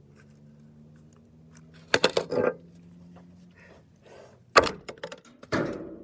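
Plastic computer mouse being battered: sharp clattering impacts with rattling of loose parts, once about two seconds in and twice more near the end.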